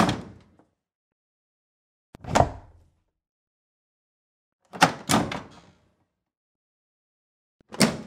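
A washer or dryer door clunking shut several times, each a short knock about two and a half seconds apart. The one about five seconds in is a few knocks in quick succession.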